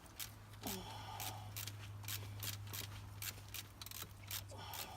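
Ratchet socket wrench clicking, about three clicks a second, as bolts are run in on the engine's water pump. A steady low hum lies underneath.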